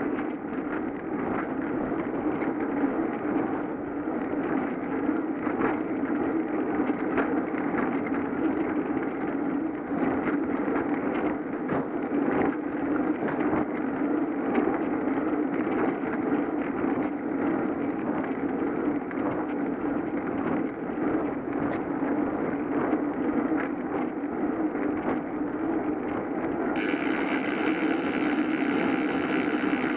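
Steady wind rush and tyre-on-road noise picked up by a bicycle-mounted GoPro while riding, with many small clicks and rattles. A higher hiss joins in near the end.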